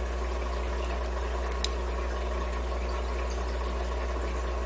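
Steady low electrical hum and background hiss of the recording, unchanging, with one brief tick about a second and a half in.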